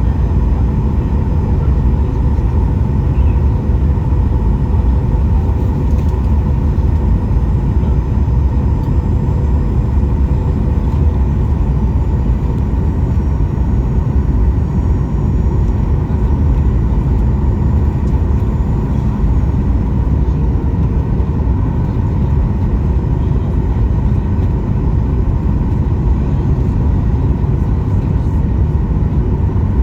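Steady, loud cabin noise inside a Boeing 737-800 in flight on its way down to land: a deep rumble of airflow and its CFM56-7 engines, with faint steady engine tones above it.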